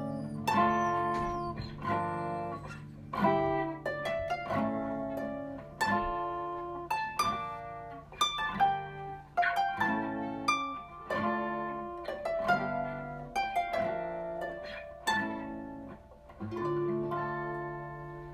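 Steel-string acoustic guitar picked with a plectrum, playing chords note by note in a slow, even rhythm, each one ringing out. It ends on a held chord that fades near the end.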